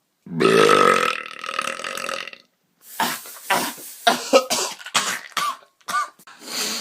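A person lets out a long, loud burp lasting about two seconds. After a brief gap, a run of short, choppy sounds follows.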